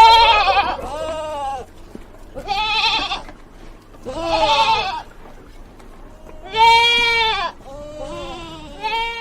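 Goat bleating over and over: a series of about seven quavering calls, each under a second long, with short gaps between them.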